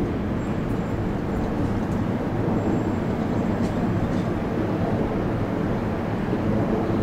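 Steady low rumble of a moving boat, engine and water noise running evenly without a break.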